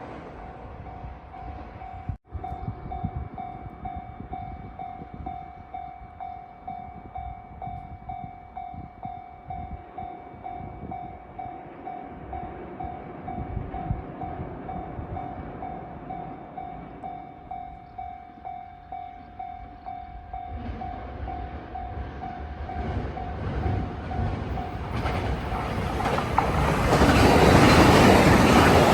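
Electronic warning bell of a Japanese railway level crossing ringing in a steady, evenly repeating ding. In the last few seconds a train approaches and passes, its rumble and wheel noise swelling to the loudest sound near the end.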